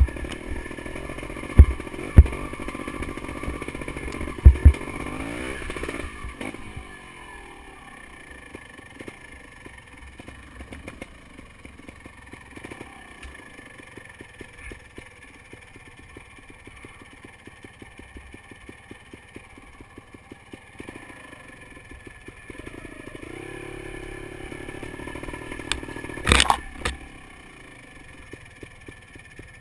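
Beta Alp 250 motorcycle engine ridden over a rough dirt trail. It starts on higher revs with several sharp knocks and clatters, then the revs fall about six seconds in and it runs at low speed with an even beat of firing pulses. The revs pick up again near the end with another loud clatter.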